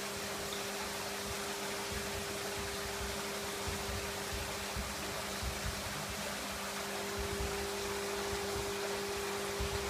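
Steady machine hum with two constant low tones over an even hiss, broken by irregular low rumbles.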